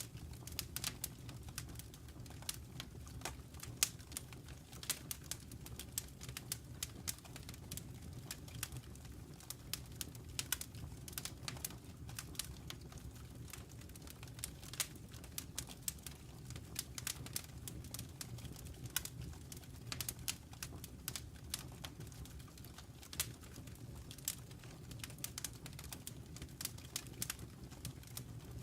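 Wood fire crackling in a fireplace: a steady scatter of sharp pops and snaps over a low, even rumble.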